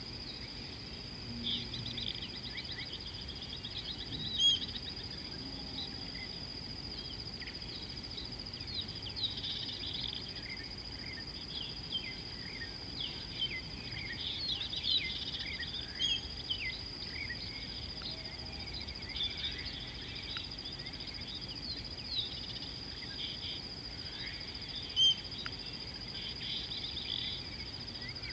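Bush ambience: a steady high-pitched insect drone with many small birds chirping and trilling over it, and two louder short bird notes, one about four seconds in and one near the end.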